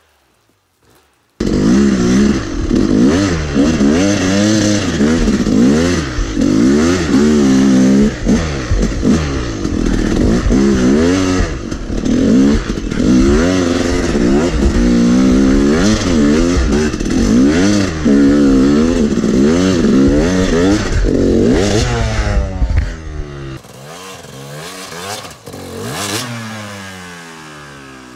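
Yamaha YZ250 two-stroke dirt bike engine revving up and down over and over, heard close from the bike itself. It starts abruptly a second and a half in and, about 23 seconds in, drops to a quieter engine heard from further off, still revving up and down.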